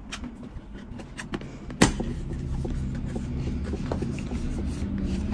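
Small clicks and rustles from handling a camera's retail box and its packaging, with one sharp knock about two seconds in. A low steady hum sits underneath from the knock onward.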